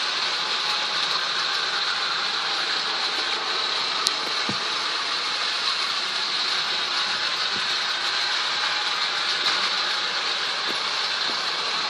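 Steady rain falling in a thunderstorm: a continuous even hiss, with a few scattered taps of drops.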